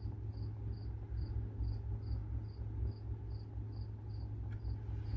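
A cricket chirping steadily, about two short high chirps a second, over a low steady hum, with one faint click near the end.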